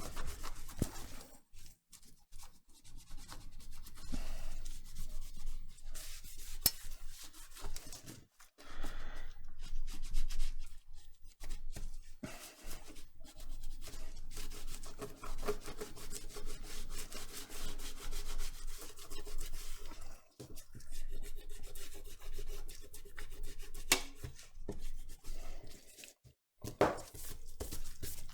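Rubbing and wiping on an iPhone 7's glass screen as it is cleaned with glasses-cleaning fluid, in uneven strokes with short pauses.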